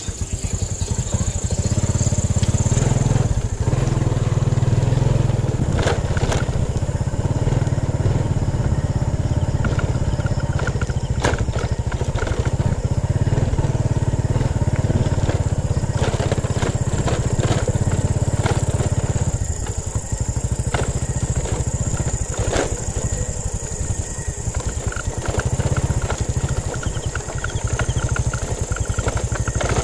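Motorcycle engine running as it is ridden along a dirt road, with a few sharp knocks scattered through.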